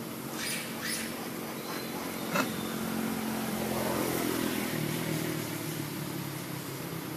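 Engine of a passing motor vehicle, a low hum that swells and then drops in pitch about five seconds in, over a steady hiss. A few sharp clicks come in the first couple of seconds, the loudest about two and a half seconds in.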